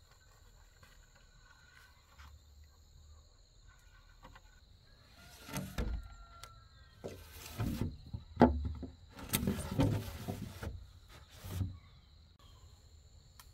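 Insects trill steadily in two high tones. About five seconds in, a run of loud knocks and scraping or rustling sounds begins and lasts about seven seconds; the strongest knock comes near the middle.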